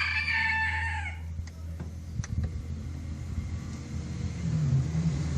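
A rooster crowing, its call ending about a second in, followed by a few light clicks and a low hum that grows louder near the end.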